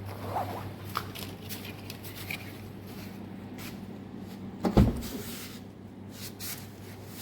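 Small clicks and rustles of someone getting into the Mitsubishi Lancer X, then one heavy thump about five seconds in as the driver's door shuts, over a steady low hum.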